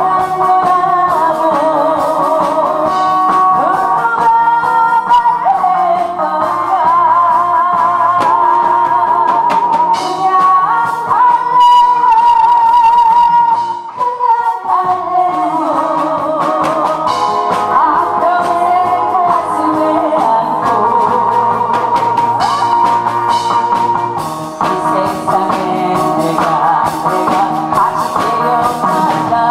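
A woman singing into a handheld microphone over instrumental accompaniment, holding notes with vibrato, with a brief break in the singing about halfway through.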